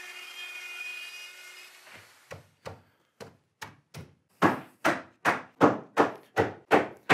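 A plunge router with a spiral bit runs steadily with a whine, cutting a groove into a cherry breadboard end, and winds down about two seconds in. Then a hammer knocks the breadboard end onto the tabletop's tenon with about a dozen blows: a few light taps, then harder, even strikes about two and a half a second.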